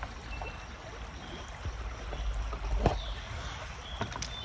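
River water lapping and trickling around a paddleboard, with a few light knocks, the loudest about three seconds in, over a low steady rumble.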